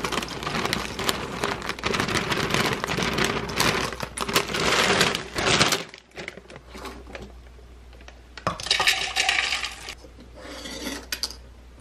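Cinnamon Toast Crunch cereal squares pouring from a plastic bag into a measuring cup: a dense clatter of many small dry pieces for about six seconds. After a short quiet spell, two shorter rattles as the cereal is tipped into the clear plastic bowl of a mini food chopper.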